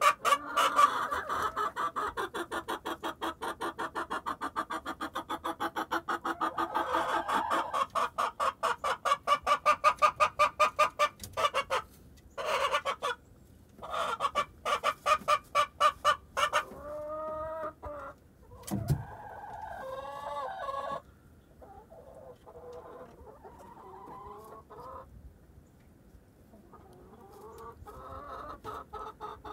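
Hens clucking in a fast, even run of several calls a second for about the first twelve seconds, then a few drawn-out calls that waver in pitch, followed by softer, scattered clucks.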